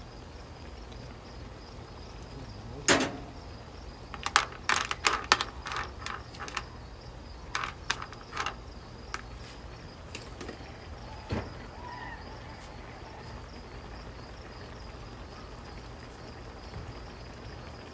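Spatula stirring and knocking seafood around in a nonstick wok: a scattered run of sharp clicks and clacks, thickest a few seconds in, thinning out by the middle. A faint steady high buzz runs underneath.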